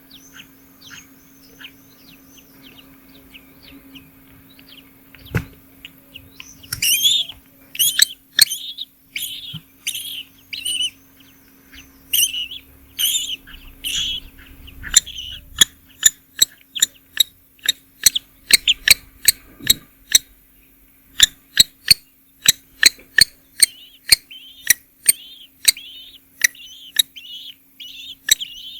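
Nestlings chirping in short, repeated begging calls, faint at first and then loud at about two calls a second from about seven seconds in. Sharp clicks come at a similar pace through the second half.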